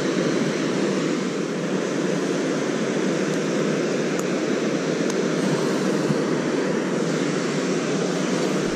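Steady rushing of water pouring through a spillway, an even, unbroken roar.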